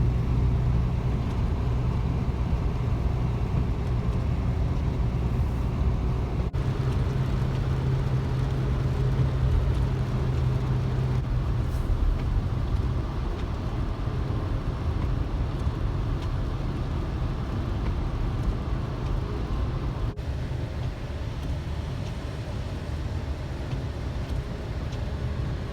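A car running, with a steady low engine hum and road noise, heard as if from inside the vehicle. The hum is strongest in the first half and eases after that.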